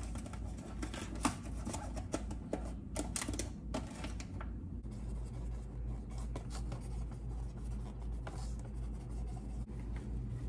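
Scraping, rubbing and light clicks of a utensil working a thick cookie dough, busiest in the first half and sparser after. A steady low hum runs underneath.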